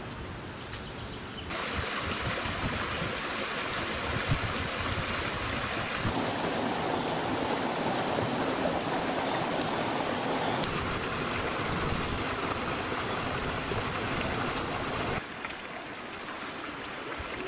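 Shallow, rocky mountain stream rushing and babbling over stones. It starts abruptly about a second and a half in, shifts in tone a couple of times, and cuts off a couple of seconds before the end, leaving quieter outdoor background.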